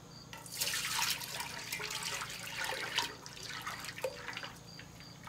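Sugar syrup being poured from a pitcher into a larger pot, a splashing liquid pour that starts about half a second in and tapers off after about four seconds. Crickets chirp faintly and steadily underneath.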